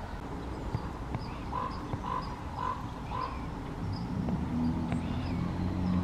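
A short animal call, repeated four times about half a second apart. From about four seconds in, a low steady hum comes up and becomes the loudest sound.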